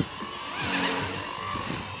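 Blade 230S electric RC helicopter whining in flight, its pitch wavering and gliding as the head speed changes during 3D manoeuvres. Wind rumbles on the microphone underneath.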